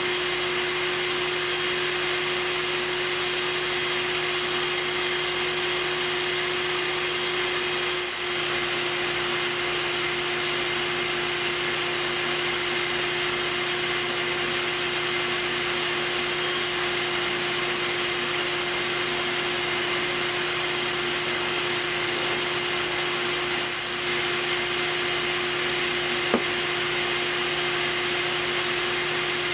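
Bee vacuum running steadily with a constant hum and hiss as bees are sucked out of the hive, a portable generator running behind it. The sound dips briefly twice, and there is a single sharp click near the end.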